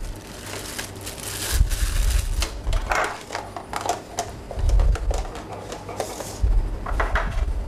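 A plastic bag of juniper berries rustling as it is handled, with light clicks and knocks of kitchen containers set down on a counter and low rumbles of handling noise.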